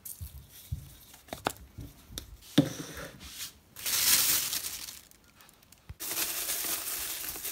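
Ground pepper shaken from a shaker over raw shrimp in a plastic colander: scattered light clicks and taps, then about a second of shaking hiss about four seconds in. About six seconds in, a steady hiss starts suddenly.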